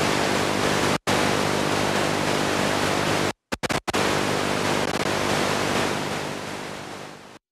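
Loud, steady hiss of static with a faint hum under it. It cuts out abruptly for a moment about a second in and again a little past three seconds, fades near the end, then stops dead.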